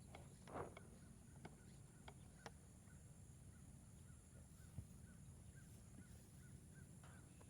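Near silence with faint outdoor sounds: a few soft clicks, one short harsh bird-like call about half a second in, then a soft chirp repeating about twice a second, over a steady high hiss.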